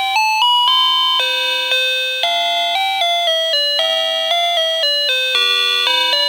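Daiso call chime playing one of its 8-bit electronic melodies: a quick run of clean, beeping notes stepping up and down, several per second.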